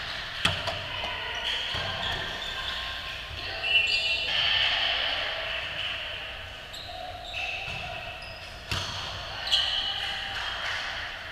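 Indoor volleyball rally in a large gym: several sharp hits of the volleyball, sneakers squeaking on the hardwood floor, and players calling out.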